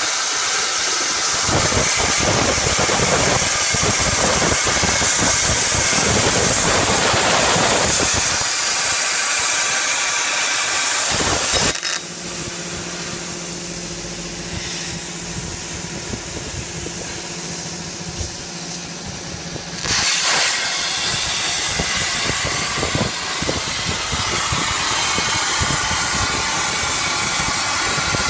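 Portable CNC plasma cutter's torch arc hissing loudly as it cuts steel plate. About twelve seconds in the arc cuts off suddenly, leaving a quieter steady hum for roughly eight seconds, then the arc hiss starts again suddenly.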